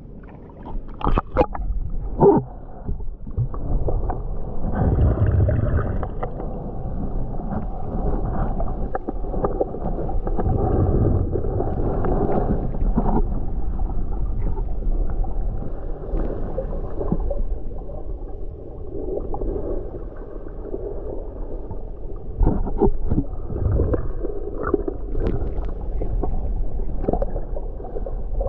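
Muffled gurgling and sloshing of water heard through an action camera held underwater, all low and dull with no high sounds. A few short sharp noises come in the first couple of seconds, and a few more later on.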